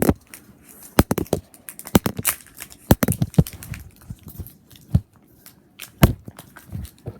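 Packaging being torn and handled, with irregular sharp knocks and clicks.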